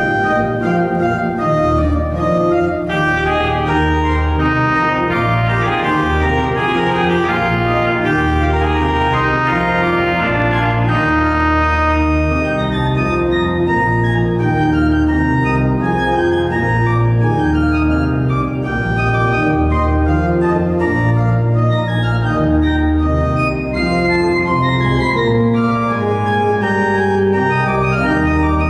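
Church organ playing an improvised chorale prelude: held chords over deep pedal bass notes, with the notes changing every second or so.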